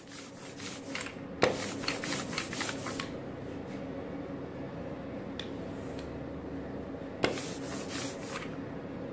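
Rubber brayer rolling through tacky printing ink on an inking slab: a sticky, hissing rasp in quick back-and-forth passes, in two main runs with a quieter stretch between. Each run starts with a sharp knock, the loudest sound, as the roller comes down. A steady low hum runs underneath.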